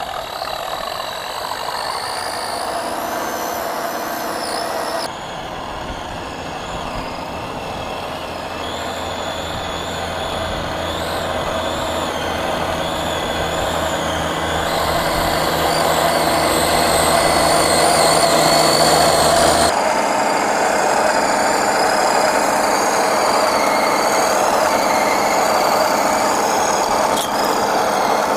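Home-made steel RC logging truck running, its motor and drivetrain whining with tones that waver in pitch. The sound changes abruptly twice and grows louder over the stretch.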